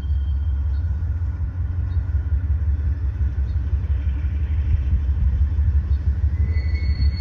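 Diesel engine of a CSX GE CM44AC locomotive (a rebuilt AC4400CW) rumbling deeply as it pulls a freight train slowly through the yard. A faint high-pitched steady tone joins near the end.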